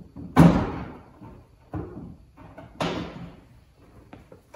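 Front bumper cover being handled and pushed into place on a car: two loud knocks, the first near the start and the louder one, the second about three seconds in, with a few lighter taps between.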